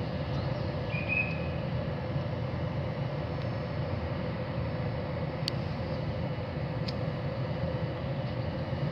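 Railway station ambience: a steady low rumble with a constant hum. A short high chirp comes about a second in, and two sharp clicks come later.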